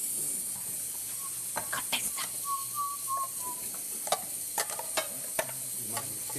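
Kitchen clatter: scattered sharp clinks of steel utensils and dishes over a steady frying hiss.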